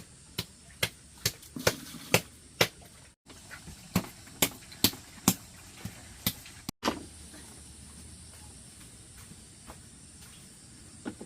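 Repeated sharp tool strikes, about two a second, for the first five seconds or so, then a single heavier knock. Afterwards only a faint steady high hiss remains.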